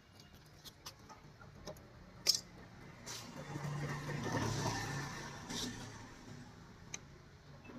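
TVS Jupiter ZX scooter's single-cylinder engine running with small ticks. It swells louder for a few seconds from about three seconds in, then settles. The scooter is being checked for a clutch noise.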